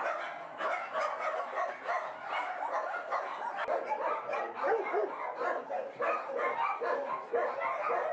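Many dogs barking at once: a continuous, overlapping chorus of barks with no break.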